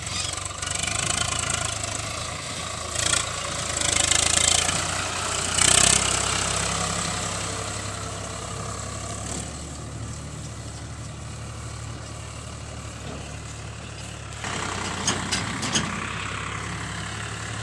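Farm tractor's diesel engine running steadily as it tows a trailer through a soft, muddy paddy field, with louder rushes of noise about three to six seconds in.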